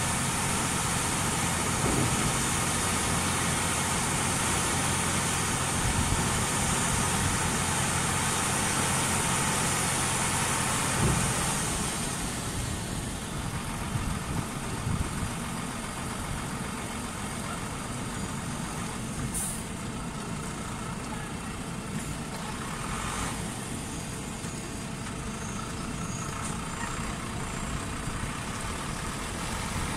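Hook-lift truck's diesel engine running under load as the hydraulic hook arm pulls a waste container onto the chassis; about 11 seconds in there is a thump and the engine drops to a quieter idle. A short hiss comes later.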